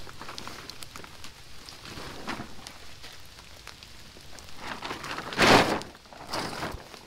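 Silver plastic tarp crinkling as it is unfolded, then shaken out with a loud whoosh about five and a half seconds in and a smaller whoosh a second later.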